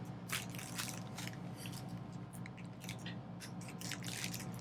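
A cheap butterfly knife's blade snipping and scraping at paper or plastic packaging in irregular short strokes, a few a second, as its dull edge is tried out.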